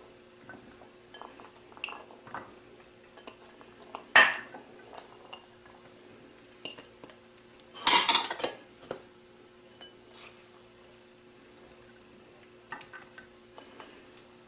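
Kitchen dishware clinking as chopped vegetables are dropped by hand into a glass baking dish: scattered light ticks, and two louder clatters of bowl against dish or counter, about four and about eight seconds in. A faint steady hum runs underneath.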